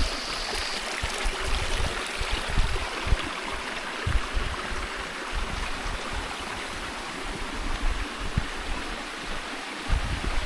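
Mountain stream babbling steadily, with scattered low thumps.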